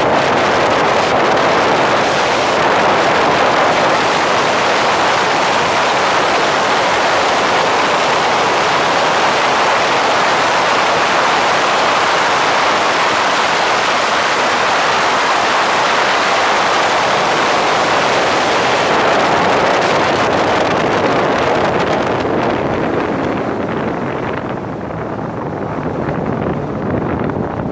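Wind rushing over a bonnet-mounted camera on a Nissan 350Z Nismo at speed, a steady rush of air mixed with the car's running noise. Over the last several seconds the rush eases and loses its hiss as the car slows.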